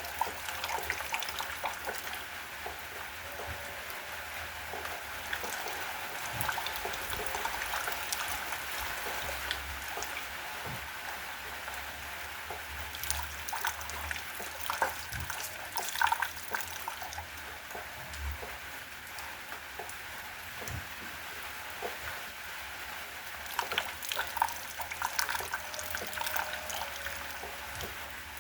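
Rain falling steadily, with many scattered drops striking and dripping close by, a few louder individual drips standing out.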